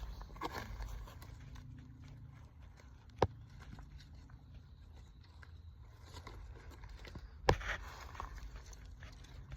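Two sharp knocks about four seconds apart over faint rustling and scraping, the second knock followed by a short burst of rustling.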